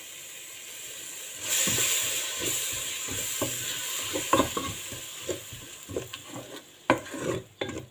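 Wooden spatula stirring a tomato sauce mixture in a hot non-stick pot, with repeated scrapes and taps against the pan over the sizzle of the sauce cooking. The sizzle swells about a second and a half in, then slowly fades as the stirring goes on.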